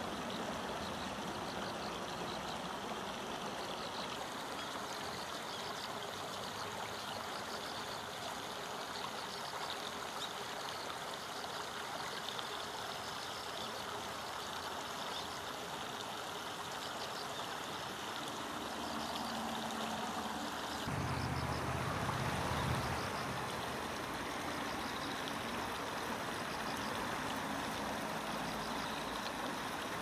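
River water flowing, a steady rushing noise, with a brief low rumble swelling about two-thirds of the way through.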